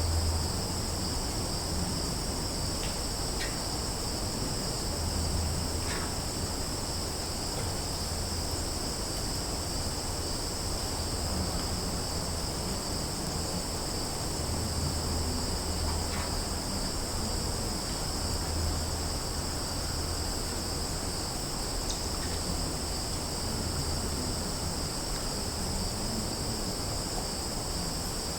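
Summer forest ambience: a steady, unbroken high-pitched chorus of insects over a low, wavering rumble, with a few faint brief chirps here and there.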